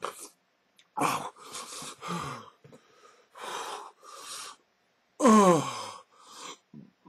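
A man gasping and wheezing in short heavy breaths, then a loud groan falling in pitch about five seconds in, nauseated by the taste of the hot sauce he has just drunk.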